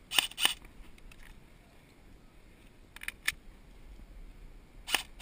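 Magpul Masada airsoft rifle firing single shots as sharp clicks: three quick ones at the start, two about three seconds in, and one more near the end.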